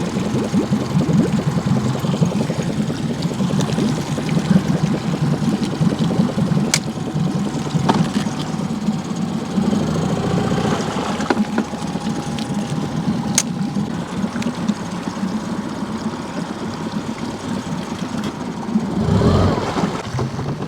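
Boat's outboard motor running steadily at low speed, with two sharp clicks and a brief louder swell near the end.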